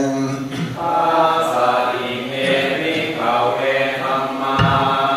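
Thai Buddhist chanting (suat mon) in Pali: low voices reciting together in short phrases on a nearly level pitch, with brief pauses for breath between the phrases.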